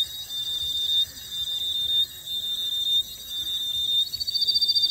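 Shrill, high-pitched cricket-like insect sound: a steady tone that breaks off about once a second, swelling each time, then a fast trill coming in about four seconds in.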